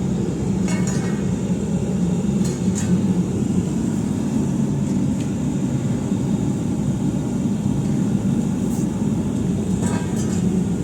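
Propane gas forge burner running with a steady low roar.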